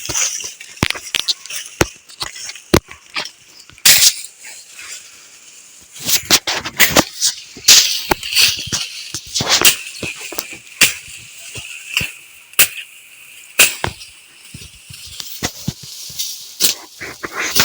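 Dry maize stalks being chopped with a machete: irregular sharp chops and cracks, about one a second, with the crackling rustle of dry leaves and stalks between them.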